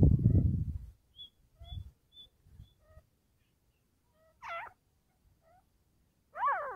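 Caged francolin (teetar) calling: two short, wavering calls about four and a half and six and a half seconds in, with faint short high chirps before them. A low rumble fills the first second.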